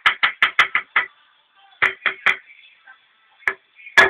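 A quick, even run of knocks on a hard surface, about six a second, stops about a second in. A few scattered knocks follow, the loudest near the end.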